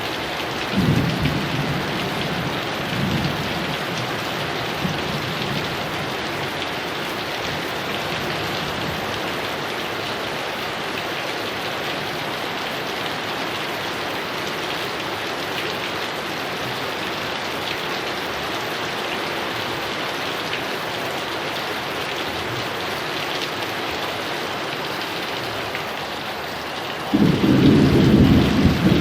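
Heavy rain falling steadily, with thunder rumbling briefly about a second in and again around three seconds, and a loud thunderclap breaking in near the end.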